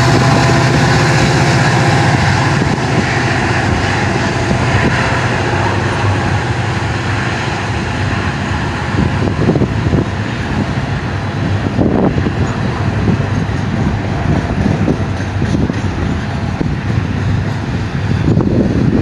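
A double-stack intermodal freight train rolls past at track speed behind Union Pacific EMD SD70-series diesel locomotives. The locomotives' engine hum is strong at first and fades as they pull away, leaving the rumble of the container well cars' wheels on the rails, with sharp wheel clacks from about halfway through.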